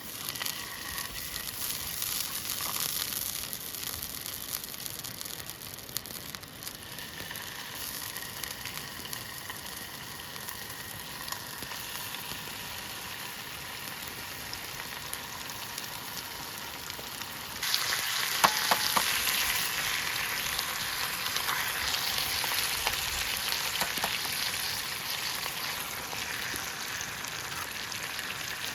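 Food sizzling in a hot pan: a steady crackling hiss that gets suddenly louder about two-thirds of the way through, with a few sharp pops just after.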